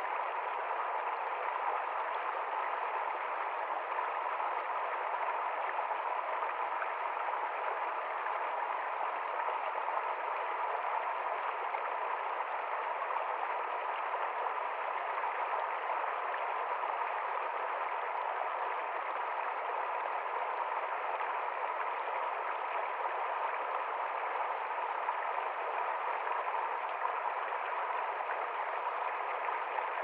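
Shallow mountain stream rushing over rocks: a steady, even rush of water that does not change.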